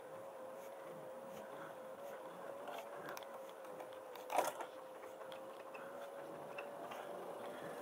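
Yose Power 250 W e-bike hub motor pulling up a steep hill on assist level 5: a faint, steady hum that edges slightly up in pitch, with light ticks and a single knock about four and a half seconds in.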